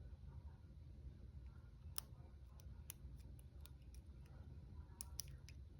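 Faint, irregular metallic clicks from a lock pick working the pins of a small 20 mm brass padlock, starting about two seconds in and bunching up near the end.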